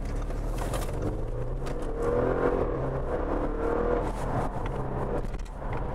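Audi RS7's twin-turbo V8 and road noise heard inside the cabin while driving; the engine note comes up about two seconds in and eases off again a couple of seconds later.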